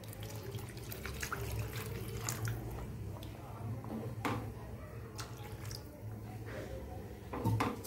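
Water poured into a pan of curry gravy, splashing and trickling, with a few light clicks over a steady low hum.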